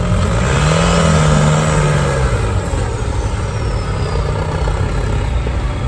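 Engine of a giant-tyred off-road buggy revving: the pitch rises and falls back within the first couple of seconds, then the engine runs on steadily.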